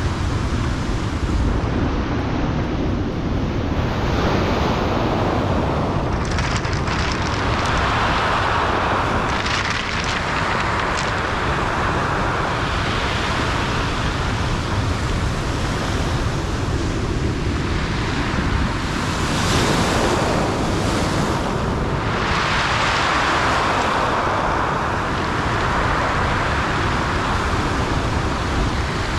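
Ocean surf breaking and washing up a pebble beach, swelling louder twice as waves come in, with wind buffeting the microphone.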